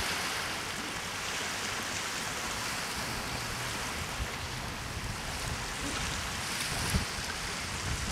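Small waves washing onto the shore with steady wind, an even rushing noise. A brief low thump about seven seconds in.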